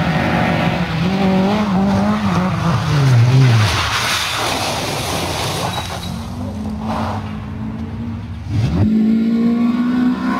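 Citroën Saxo rally car's engine running at high revs, the revs falling about three seconds in as the car slides, with tyre and gravel noise. Near the end it cuts suddenly to a second rally car, a Honda Civic, its engine pulling with slowly rising revs.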